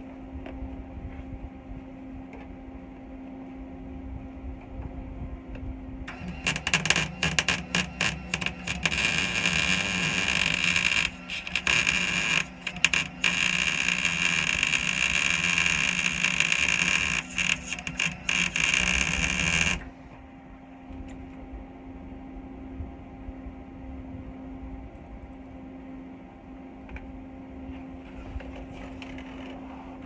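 Wire-feed (MIG) welder laying a weld on steel tubing: the arc crackles and sizzles, starting about six seconds in, breaking off briefly twice, and stopping suddenly near twenty seconds. A steady low hum runs before and after it.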